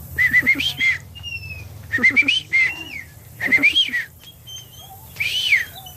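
A talking bird giving four warbling, whistled calls with quick rising and falling glides, about one every second and a half, beeping and whistling in a way that sounds like R2-D2.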